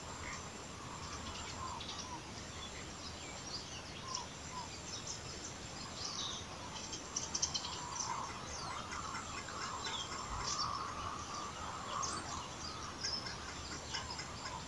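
Birds chirping and calling around a lagoon: many short calls, busiest in the middle, over a steady outdoor hiss.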